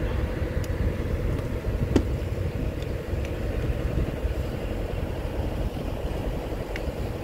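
Small harbor car ferry's engine running steadily under way, a low even drone with a faint hum over it; a single sharp click about two seconds in.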